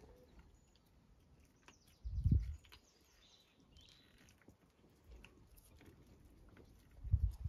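Cat licking fur with a tongue, heard as faint, scattered small wet clicks, with a brief low rumble about two seconds in and low thumps near the end.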